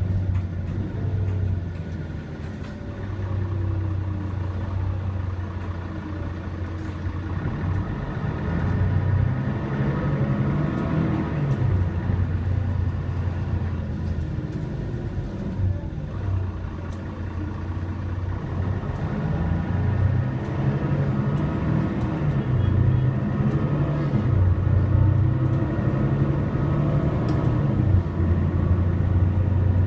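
City bus heard from inside the passenger cabin while driving: a steady low engine drone with road noise, the engine note rising and falling several times as the bus speeds up and slows.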